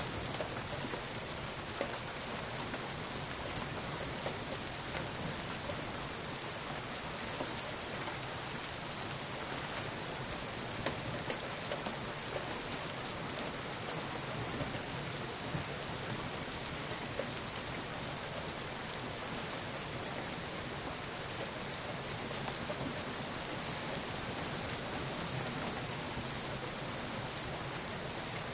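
Steady rain, an even hiss with scattered closer drops ticking here and there.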